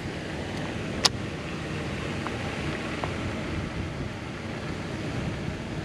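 Steady low rumble of wind on the microphone, with one sharp click about a second in.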